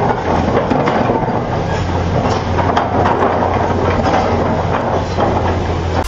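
Excavator's diesel engine working under load with a steady low drone, over repeated knocks and scraping of the steel bucket grinding against a large boulder.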